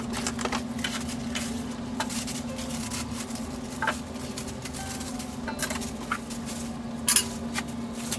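Unpacking noises: a cardboard box handled and plastic wrap crinkling as a wok is pulled from it, with scattered knocks of items set on a counter, over a steady low hum.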